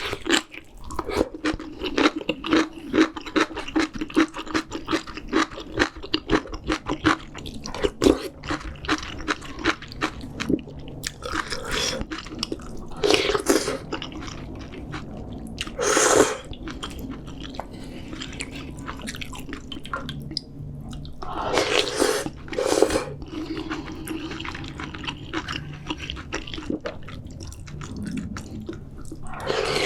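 Close-miked eating sounds of seafood ramyeon: rapid, wet chewing through the first ten seconds or so, then several separate loud slurps spread through the rest.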